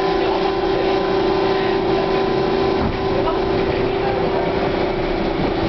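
Hawker-Siddeley H5 subway car running at a steady speed, heard from inside the car: a steady whine at one pitch from the running gear over the rumble of the wheels on the rails.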